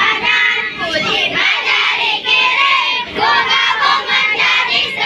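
A group of schoolchildren singing loudly together, clapping along.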